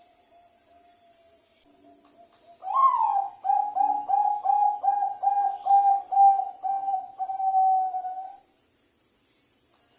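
Zebra dove (perkutut, Bangkok type) singing one cooing phrase from a few seconds in: a rising opening note, a quick run of about ten coos, and a longer held final note. An insect trills steadily in the background.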